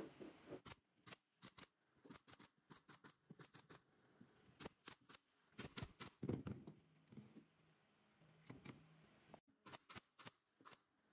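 Pneumatic nail gun and bar clamps working on a softwood frame: a run of sharp clicks and snaps in quick clusters, loudest a little past the middle.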